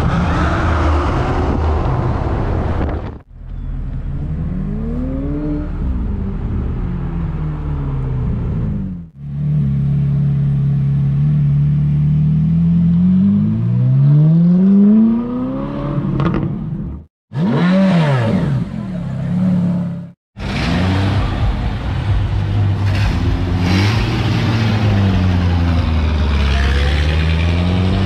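Several short clips of performance car engines revving and accelerating, their pitch sweeping up and down, each clip cut off abruptly. In one a red Ferrari 458 Italia, a mid-engined V8, accelerates away with a steadily rising engine note.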